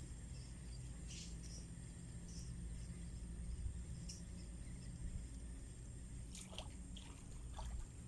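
Faint trickling of water with a few small splashes, over a low steady rumble.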